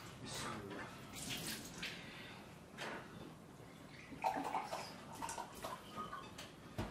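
A drink pouring from a glass pitcher into a glass, with a few light clinks of tableware.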